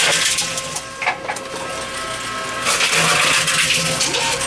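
Tomra T-53 reverse vending machine's motor-driven rollers turning a plastic bottle in the intake chamber while it is scanned, a steady mechanical whir. A couple of knocks come about a second in, and the whirring grows louder and rougher from a little under three seconds in.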